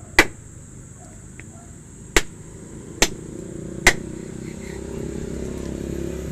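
Four sharp, irregularly spaced knocks or blows over a steady high hiss; a low rumble builds underneath from about halfway.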